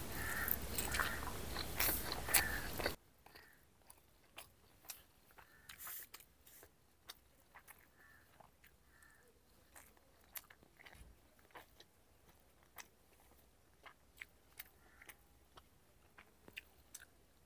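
A person eating a besan (gram-flour) curry with rice: faint, scattered chewing and mouth clicks. A steady background hiss covers the first three seconds and cuts off suddenly.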